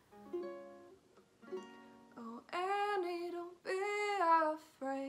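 Ukulele played softly with a woman singing: a few picked notes first, then two long sung notes over the ukulele, and a short final note near the end.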